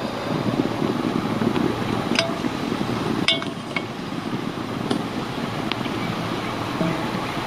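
A small metal cooking pot clinking about five times, with short ringing knocks, as it is set down and moved on glowing coals. A steady low rushing noise runs beneath.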